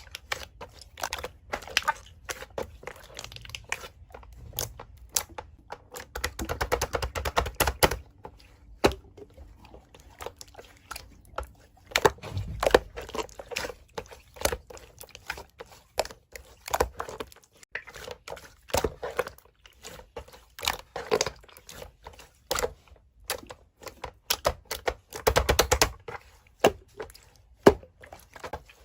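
Slime being squeezed, poked and stretched by hand, giving a run of sticky clicks, pops and crackles that comes in uneven clusters, with a few denser crackling stretches.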